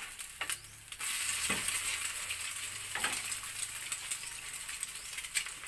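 Eggs frying on a flat griddle pan, a steady sizzle that grows louder about a second in, with a few light taps.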